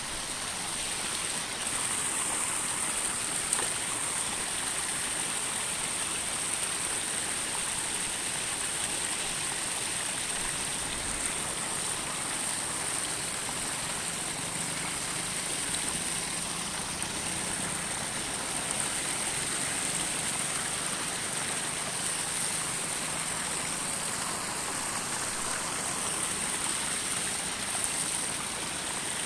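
Steady rush of flowing water, as of a stream or river, with a constant high-pitched whine above it and a faint low hum in the middle stretch.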